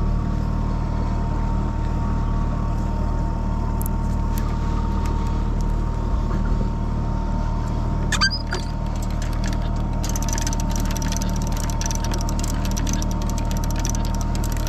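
Boat engine running steadily with a low hum and a faint steady tone. About two-thirds of the way through, a rapid clicking starts and keeps going over the engine.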